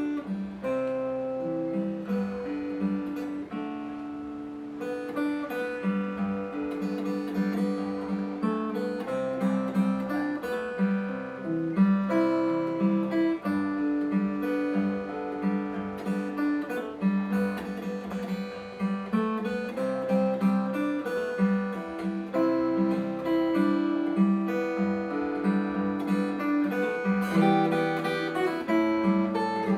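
Acoustic guitar, a copy of the Taylor 314ce with sapele back and sides, played fingerstyle: a steady pulse of plucked bass notes under a picked melody.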